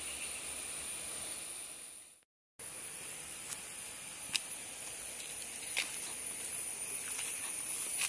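Steady, high-pitched outdoor hiss of rural ambience. It fades out about two seconds in, drops to a brief silence, then resumes with a few light clicks and rustles of footsteps through undergrowth.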